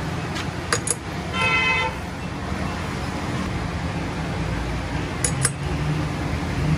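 A short vehicle horn toot about a second and a half in, over a steady low hum, with a few sharp clicks around the first second and again about five seconds in.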